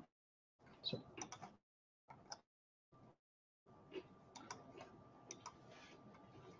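Near silence broken by a few faint clicks and taps, with the room sound dropping out completely between them as a video call's noise gate cuts in and out.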